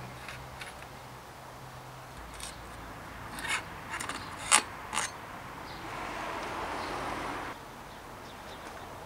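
Metal bicycle parts clicking and knocking sharply several times as they are handled, followed by a gritty rubbing sound lasting about a second and a half.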